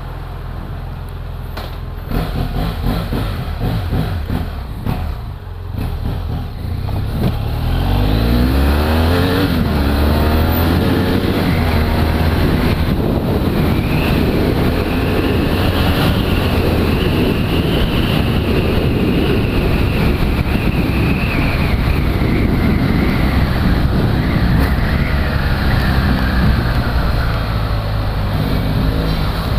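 BMW F800GS motorcycle's parallel-twin engine ticking over, then revving up through the gears as the bike pulls away about seven seconds in. After that it runs steadily at road speed with wind and road noise.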